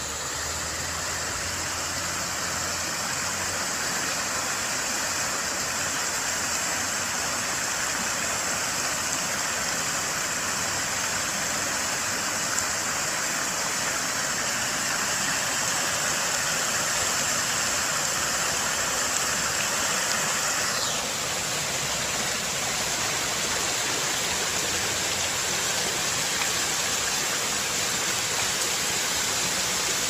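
Steady rush and splash of water from a tiered fountain's central jet and arcing side jets falling into its stepped basin. The sound shifts slightly in tone about two-thirds of the way through.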